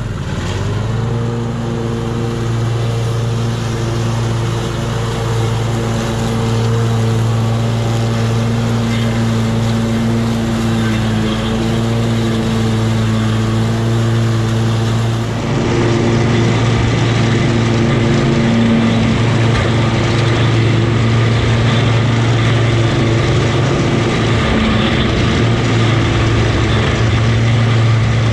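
Gravely 52-inch zero-turn mower's engine revving up in the first second, then running steadily at high throttle with the blades engaged, cutting through wet tall grass. About halfway through, the sound becomes harsher and hissier, heard close to the cutting deck.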